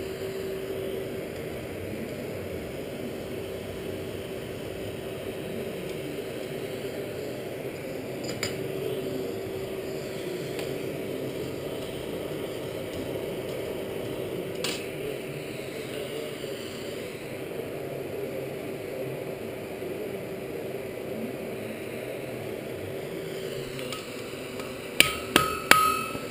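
Steady hum of a coal forge's air blower while the rivet heats, with an odd clink of tongs on metal. Near the end come about four quick hammer blows ringing on the anvil as the hot rivet is peened over to join the tongs.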